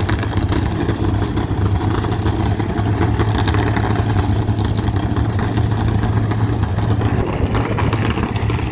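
A big car engine running at idle, loud and steady with a low rumble.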